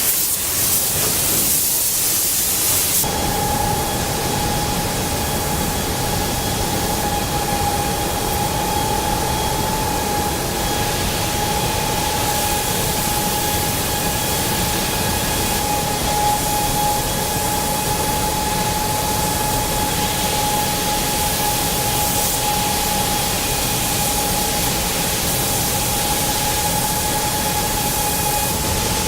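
Car factory production-line noise: a steady hiss of machinery, joined about three seconds in by a steady machine whine that holds one pitch.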